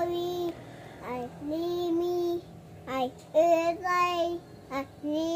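A young child singing without clear words, in short phrases: a quick note, then a long held note, repeated about four times.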